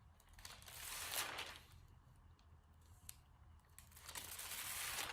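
Paper rustling in two soft swells, each about a second long, with a faint tick between them: the pages of a book being handled and turned.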